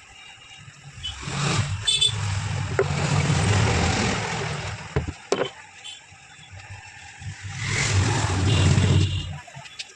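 Two motor vehicles passing by, one after the other, each building up and fading away over a few seconds.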